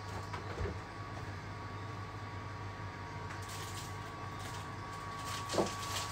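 Steady low electrical hum with a faint high whine, and a couple of soft knocks, one about half a second in and one near the end.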